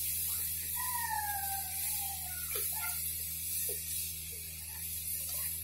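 Water poured from a vessel into a kadhai of besan-and-yogurt kadhi batter while a ladle stirs it, over a steady hiss and low hum. A few faint gliding calls sound in the background.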